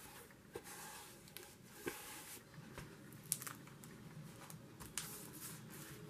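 Faint rustling and light clicks of a hardcover picture book being handled and opened flat, its cardboard covers and paper pages rubbing and tapping, with one sharper click about three seconds in.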